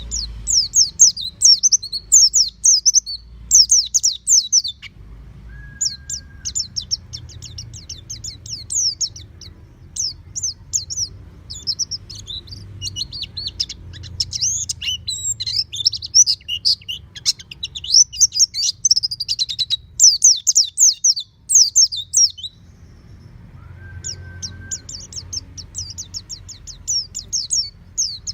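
Pleci (white-eye) singing in long bouts of rapid, high-pitched twittering, pausing briefly twice.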